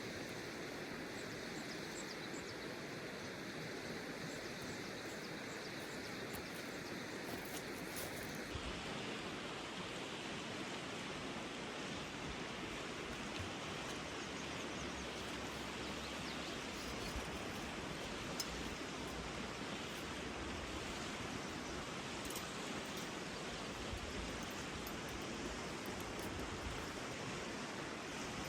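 Stream water flowing, a steady rush of running water; its sound changes slightly about eight seconds in, with a few faint clicks over it.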